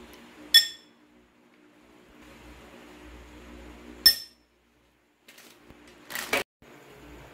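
Kitchenware clinking: two sharp, ringing knocks about three and a half seconds apart, followed by a short rushing noise near the end.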